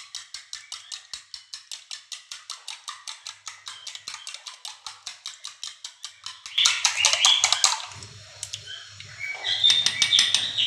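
A metal spoon beating a raw egg in a plastic bowl: quick, even clicks of the spoon against the bowl at about six a second. About two-thirds through, the beating turns into louder, harsher clattering.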